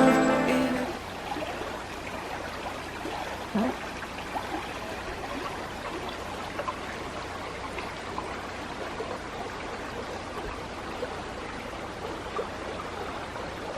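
Steady rushing of running water, like a forest stream, with background music fading out in the first second.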